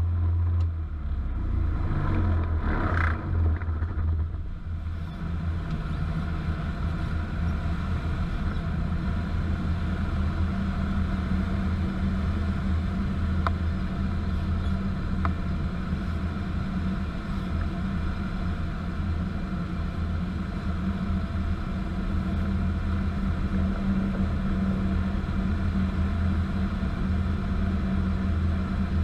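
Steady low rumble of a Kitfox light aircraft in flight, heard from inside its open-frame cockpit during a practice deadstick glide, with a brief scratchy disturbance about two to four seconds in.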